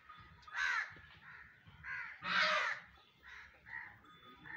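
Crows cawing: several harsh caws, the loudest about half a second in and around two and a half seconds in, with fainter ones between.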